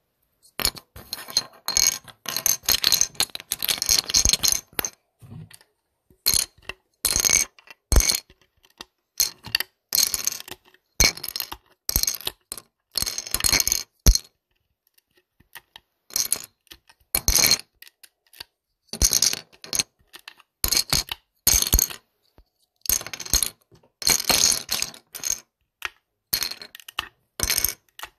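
Plastic LEGO bricks clattering and rattling against each other, in bursts of rapid clicking a second or two long with short silent gaps and a pause of about two seconds midway.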